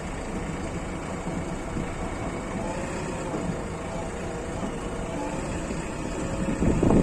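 Diesel engine running steadily, with a faint wavering tone over the top.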